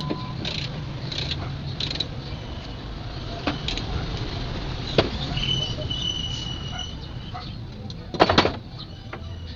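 Scattered metal knocks and clanks from hand tools while a truck is being dismantled, with a quick loud clatter about eight seconds in. Birds chirp in the background.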